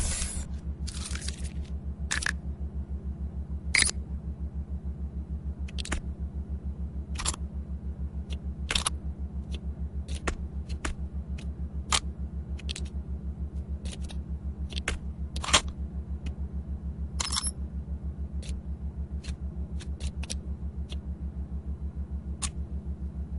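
Machinery running with a fast, even low pulsing, overlaid by irregular sharp mechanical clicks and ticks, like gears and levers snapping into place.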